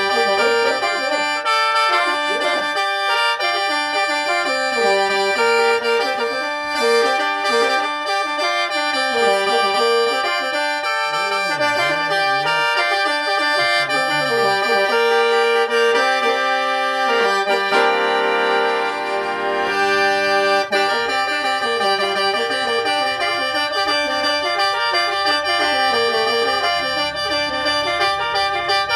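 Solo khaen, the bamboo free-reed mouth organ, played in lai yai mode in G minor: a moving melody over steady sustained drone notes, with a fuller held chord a little past halfway.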